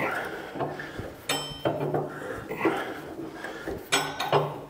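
Hand tap being turned with a tap wrench, cutting threads for boiler stays in a traction engine's steel firebox plate: scraping and clicking of the tap in the steel, with two sharp ringing metallic clinks, about a second in and near the end.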